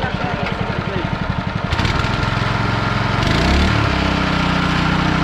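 Small stationary engine driving a meat mincer, chugging slowly at first, then revving up about three seconds in and settling into a steady, faster run.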